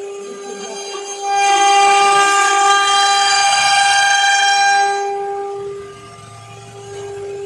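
CNC router spindle whining at a steady pitch as its bit cuts a round wooden workpiece turning on the rotary axis. About a second in the cut bites harder and the whine grows louder and rougher for about four seconds, then eases back.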